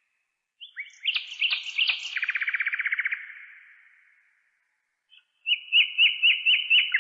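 A songbird singing two phrases. The first is a few sharp notes running into a fast trill that fades out. After a short pause comes a string of quick, repeated rising notes.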